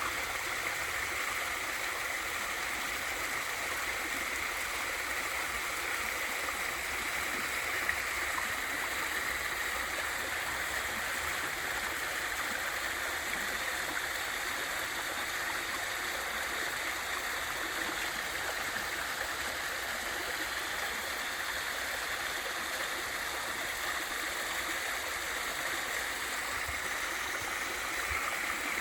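Small waterfall and valley stream: water rushing and splashing over rocks in a steady, even hiss.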